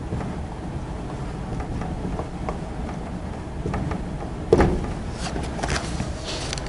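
Marker writing on a whiteboard: short scratching strokes and light taps over a steady low hum, with one sharper knock about four and a half seconds in.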